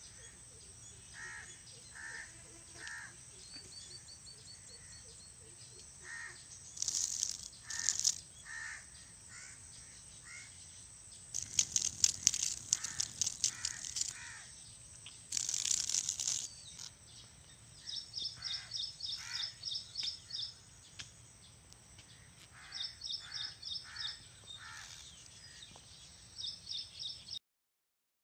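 Outdoor rural ambience with birds calling: repeated short calls and, later, high rapid chirping trills. A few bursts of rustling noise come through in the middle, and the sound cuts off to silence just before the end.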